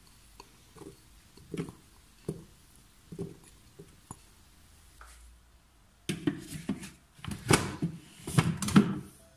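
Soft thuds of butter pieces dropping from a glass bowl into a food processor's mixing bowl, then, from about six seconds in, louder clunks and scrapes as the Monsieur Cuisine Connect's plastic lid is set on the bowl and locked.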